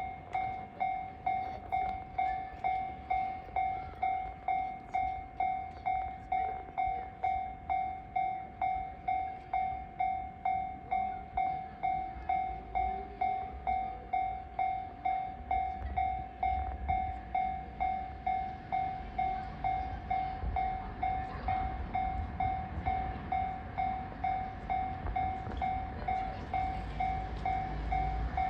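Railway level-crossing warning bell ringing steadily, about two dings a second. Underneath it, the low rumble of an approaching freight train builds toward the end.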